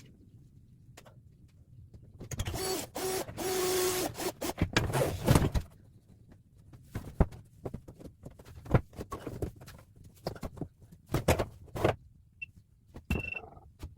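A power drill-driver whirs in short pulses for about two seconds, then come a string of scattered knocks and clatters from handling plywood and tools.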